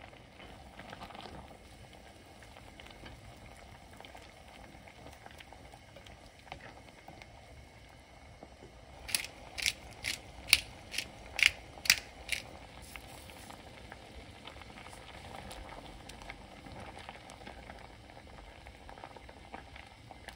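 Doenjang soup with tofu and peppers boiling in a stainless steel pot, a low steady bubbling. About nine seconds in comes a quick run of about eight sharp clicks over three seconds: a pepper grinder seasoning the soup.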